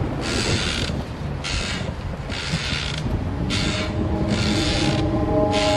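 Horror sound effect: a rhythmic rasping, creaking stroke repeated about once a second, six times, over a low drone with a few steady held tones.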